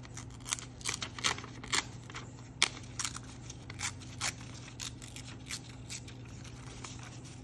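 A paper page from an old book being torn by hand in a series of short, irregular rips, thinning out near the end.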